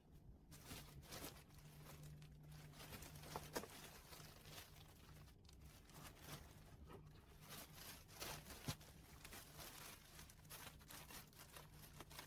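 Near silence: faint rustling and a few light clicks over a low steady hum.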